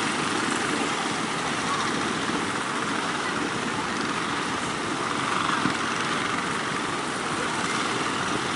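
Rough sea surf breaking, mixed with the engines of small outrigger fishing boats running, heard as one steady noise without breaks.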